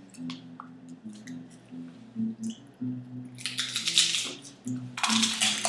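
Tortilla chips crunching as they are bitten, two loud crunching bursts a little past the middle and near the end. Small clicks of chips scooped against a glass salsa bowl come in between, over quiet background music.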